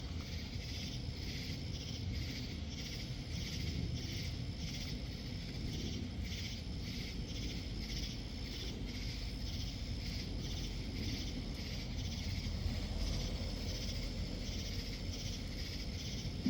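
Evening insect chorus, crickets or katydids chirping in a steady pulsing rhythm a few times a second, over a low steady rumble.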